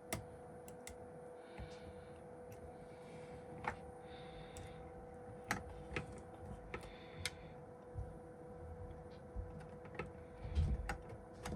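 Irregular small clicks and taps of a flex-cable connector being worked by hand onto an iPhone XS motherboard, with a couple of duller knocks near the end, over a faint steady hum.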